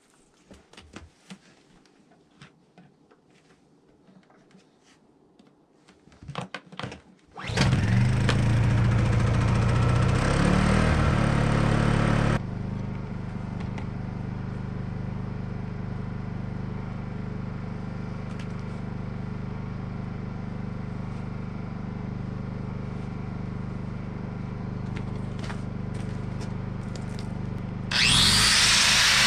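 Honda EU2000i inverter generator pull-started about seven seconds in, after a few quiet handling clicks. It runs fast for about five seconds, then drops to a lower, steady running speed. Near the end an angle grinder starts up, loud and high-pitched.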